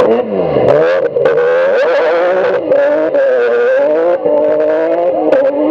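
Rally car engine revving hard as the car passes close and accelerates away. The pitch drops just as it goes by, then climbs in several rising sweeps, with a sharp crack at each gear change.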